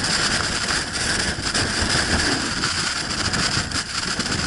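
Strong blizzard wind blowing hard across the microphone, a loud, steady rush with low buffeting rumble.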